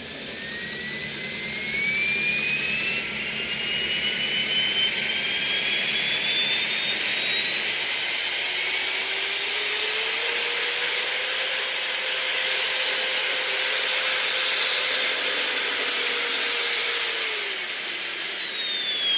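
Electric ducted fan on an eight-wheel RC truck spooling up to full thrust: a whine that rises steadily in pitch over about ten seconds over a rush of air, holds steady, then falls away in the last couple of seconds as the fan spins down.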